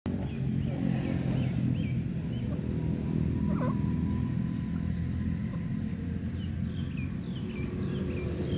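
Bird chirping in runs of short, quick hooked notes, near the start and again near the end, over a loud steady low rumble.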